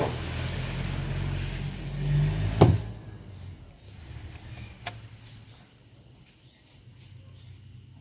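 Sharp metal clicks of screwdriver work on an electric motor's wiring terminal block: a loud one about two and a half seconds in and a smaller one about two seconds later. Under the first part runs a low engine-like hum that swells, then fades out just after the loud click.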